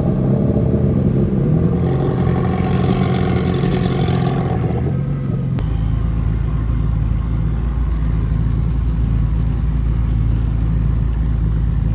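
Outboard boat motor running loudly, with a stretch of extra hiss and revving about two seconds in, then settling into a steady deep rumble from about the middle on.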